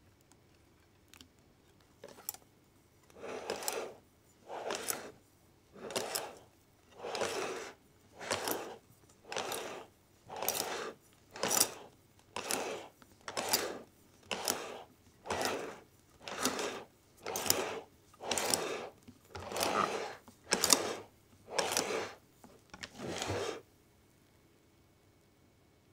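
Balloon whisk folding egg-yolk batter into meringue in a glass bowl: a soft wet swish with each stroke. About fifteen strokes a little over a second apart start about three seconds in, then stop shortly before the end.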